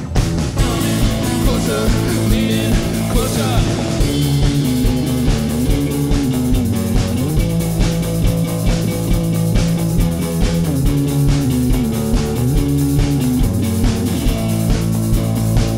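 Rock band playing a song, with electric guitar over a steady drum beat.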